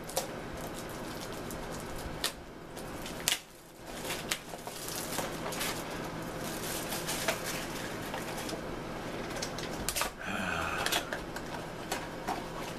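Crinkling and rustling of a Mystery Mini blind-box package and its foil bag being handled and opened, full of sharp crackles and clicks.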